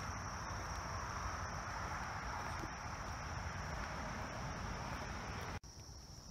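A steady high insect trill over a broad rustling and scuffing of footsteps through leaf litter and over concrete. The sound drops sharply about five and a half seconds in.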